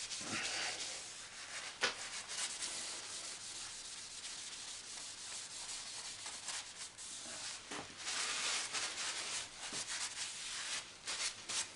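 Paper towel rubbed and scrubbed over the oily cast-iron slideway of an Atlas 7B metal shaper, wiping it clean after stoning: an irregular dry scuffing with a few sharp clicks, louder about eight seconds in, stopping abruptly at the end.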